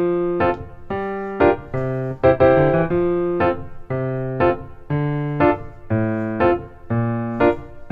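Background piano music: a light, bouncy tune of repeated chords, about two a second.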